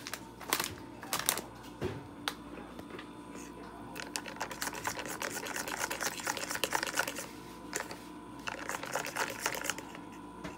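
Wire whisk beating pancake batter in a plastic mixing bowl: rapid runs of clicks and taps as the wires hit the bowl. A few separate knocks come first, then dense spells of whisking through the middle and again near the end.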